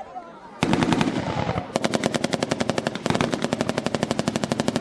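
Machine gun firing blanks in automatic bursts. A first dense burst comes about half a second in, then a long burst of rapid, evenly spaced shots from about two seconds in.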